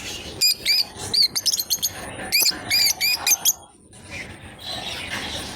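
Lovebirds chirping: a quick run of sharp, high chirps that stops a little past halfway, followed by a softer, even noise.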